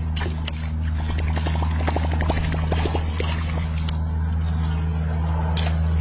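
A hooked catfish thrashing and splashing at the water's surface, heard as irregular splashes and crackles, over a steady low motor hum.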